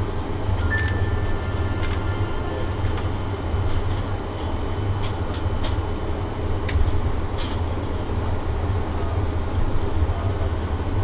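Airbus A350-900 cabin noise during taxi: a steady low rumble from the Rolls-Royce Trent XWB engines at low thrust and the rolling aircraft, with scattered sharp clicks and knocks.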